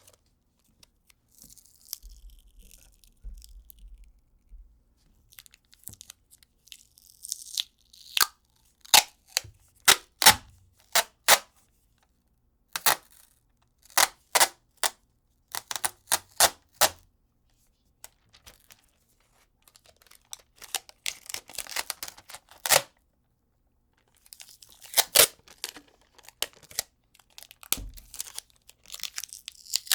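Adhesive tape being pulled off the roll and torn: a run of short, sharp rips with a few longer drawn-out pulls, separated by brief pauses.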